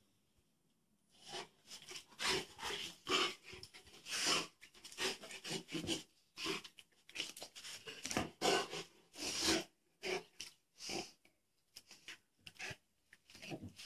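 A Rottweiler chewing and gnawing a black rubber Goughnuts Maxx ring toy. The chewing comes in short, irregular bursts, starting about a second in.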